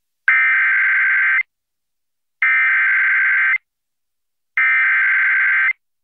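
Emergency Alert System SAME header: three bursts of warbling two-tone digital data, each about a second long with about a second's gap between them. These bursts open an EAS alert and carry its coded event and area, here a severe thunderstorm warning.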